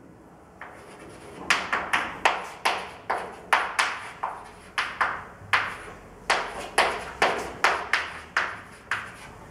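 Chalk writing on a chalkboard: a run of short taps and scratches, about two or three strokes a second, starting about a second and a half in and stopping near the end.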